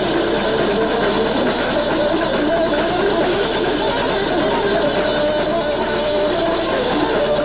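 Early death/thrash metal band playing live: electric guitar and drums in a dense, unbroken wall of sound.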